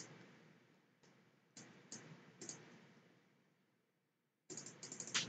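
Faint computer mouse clicks: a few single clicks spaced out, then a quick run of several clicks near the end.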